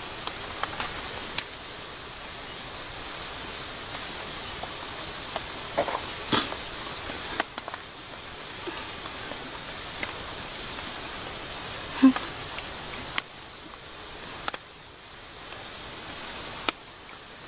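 Steady outdoor background hiss with a few scattered faint clicks and rustles.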